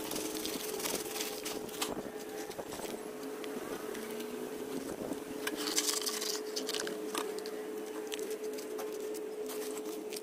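Small stones and gritty potting mix poured from a sack and a plastic basin onto the soil of a potted tree, a scattered pattering and rattling, loudest about six seconds in as the pebbles go on.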